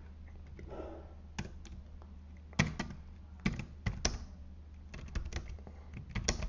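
Computer keyboard keystrokes: a few scattered key clicks, then a quick run of typing near the end, over a steady low hum.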